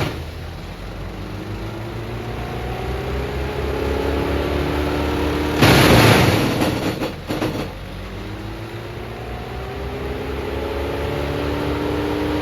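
Morbark M14 Blizzard drum chipper's four-cylinder Perkins 1104E diesel running, its pitch climbing steadily as it comes up to speed. About five and a half seconds in there is a loud burst of noise lasting about two seconds, after which the engine pitch dips and climbs again.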